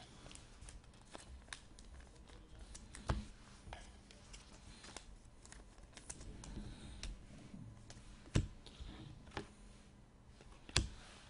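Football trading cards being handled and slid one behind another in the hands, a run of soft clicks and rustles with a few sharper ticks, the loudest about three seconds in, about eight seconds in and near the end.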